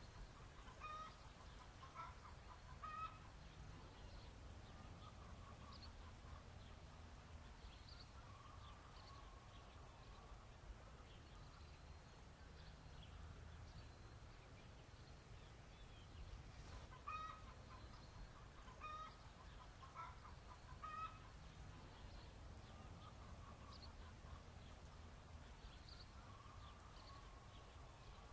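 Chickens clucking faintly in short calls, in a cluster near the start and another about two-thirds of the way through, over a low steady rumble.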